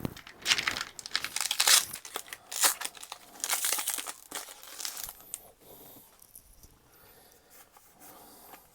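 Foil wrapper of a Pokémon trading-card booster pack being torn open and crinkled: a run of loud rips and rustles over the first five seconds or so, then only faint rustling.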